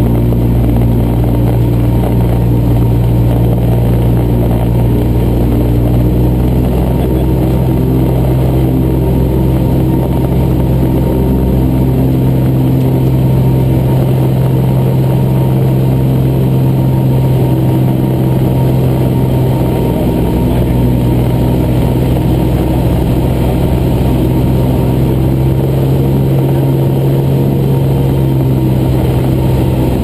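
Cessna 175's engine and propeller droning steadily in flight, heard inside the cabin.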